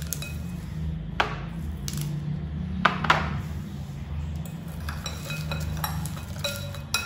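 Metal spoons knocking and clinking against a glass mixing bowl of salad as it is stirred. Two sharp knocks come in the first three seconds, then a run of quick ringing clinks in the last two seconds, over a steady low hum.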